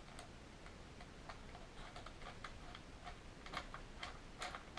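Faint, irregular small clicks and ticks of a hand tool turning the screw at the back of an airsoft Tri-Shot shotgun to take it out.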